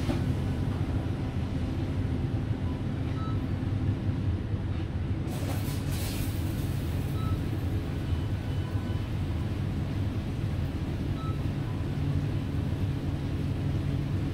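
Hood-type commercial dishwasher running a wash cycle: a steady low rumble and hum, with a brief hiss about five seconds in.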